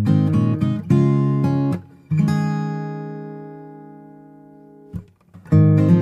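Background music on acoustic guitar: plucked and strummed chords, then one chord left to ring out and fade for about three seconds before the playing picks up again near the end.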